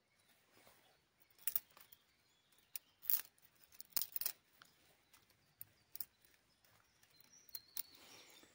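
Small campfire crackling, with scattered sharp snaps every second or so.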